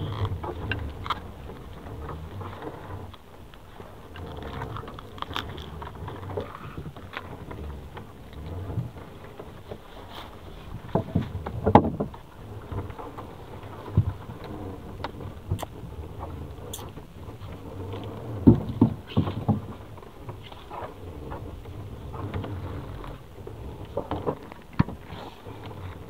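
Gill net being hauled by hand into a small fishing boat: rustling of net and line, with scattered sharp knocks against the hull over a low steady rumble.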